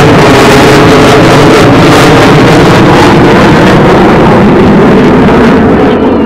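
Very loud jet roar from an F/A-18 fighter's twin engines flying overhead. The high hiss dies down near the end.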